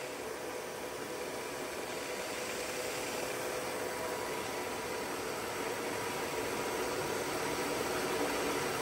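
WMW-Heckert dual-spindle milling machine's vertical spindle running at its top speed of 1800 RPM: a steady, even whir with a few faint steady tones. There is no extra noise from the spindle even at this high RPM, the sign of a spindle in good running order.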